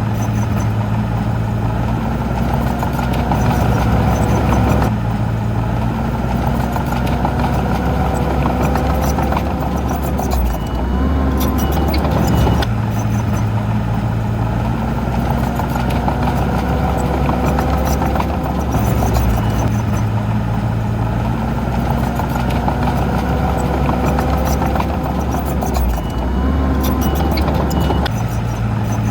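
Heavy diesel engine of an earthmoving machine running continuously, its note shifting every several seconds as the load changes.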